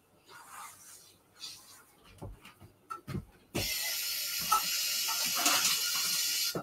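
A few light knocks, then a kitchen tap is turned on about three and a half seconds in and water runs steadily for about three seconds before being shut off.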